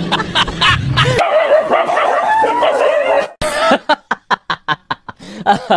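A dog yelping and whining in a wavering pitch. After an abrupt cut, a quick run of short sharp calls follows, about four a second.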